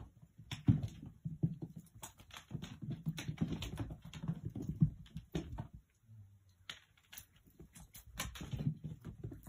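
Cats scampering and pouncing on a wooden floor: quick, irregular paw thuds and scuffles, easing off a little past the middle, then a fresh flurry near the end.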